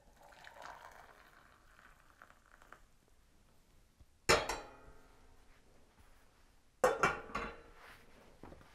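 Tea trickling faintly from an enamel pot through a mesh strainer into a cup. Then the enamel pot is set down on the gas stove's grate with a single sharp, ringing clank, and a few seconds later its lid goes on with several clinks.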